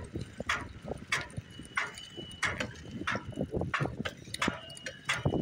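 Steady walking footsteps, about one sharp step every 0.6 seconds, with lighter clicks and rattles in between from a dog walking alongside. A faint steady high tone runs underneath.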